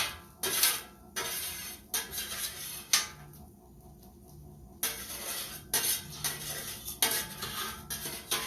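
A metal utensil scraping and knocking against a pan, stirring fried rice, in a series of sharp strokes with a pause of about a second and a half in the middle.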